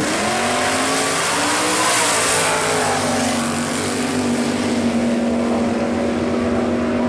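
A 1937 Chevrolet coupe pro street drag car and a second car launching side by side off a drag strip's starting line: the engines go from a steady drone to full throttle right at the start, pitch climbing over the first second or so as they accelerate away, then settle into a steady drone.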